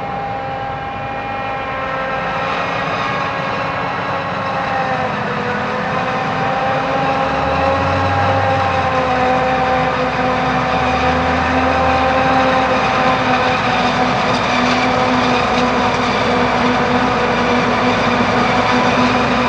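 Self-propelled forage harvester and tractor running while chopping maize: a steady engine drone with several held whining tones, slowly growing louder.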